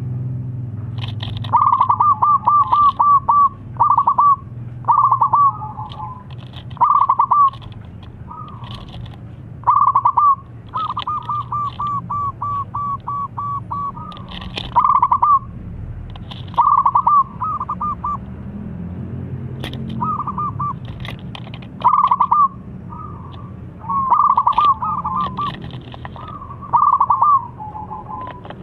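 Zebra dove (perkutut) cooing: repeated phrases of quick staccato notes, each phrase about one to two seconds long, with one longer run of about ten notes near the middle.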